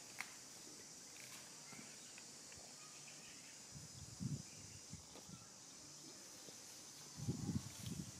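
Quiet outdoor ambience: a steady high insect drone, with a few soft low thuds or rustles about four seconds in and again near the end.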